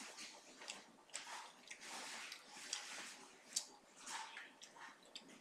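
Soft chewing and mouth sounds of someone eating steak, with a few sharp, light clicks of a knife and fork against the plate.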